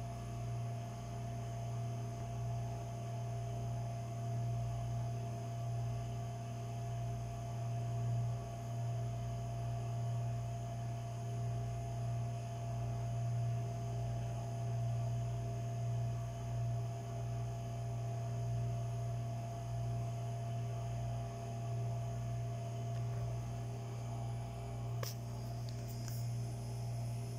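A steady low hum, like a machine or mains hum, with faint higher tones over it. Two or three small clicks come near the end.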